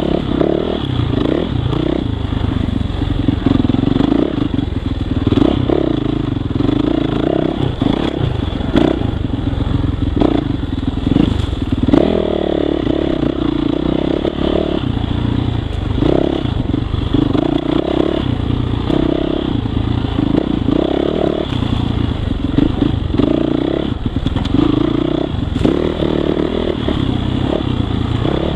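2018 Yamaha YZ450F's single-cylinder four-stroke engine being ridden off-road, the revs rising and falling every second or two as the throttle is worked. Rattles and knocks come from the bike over the rough ground.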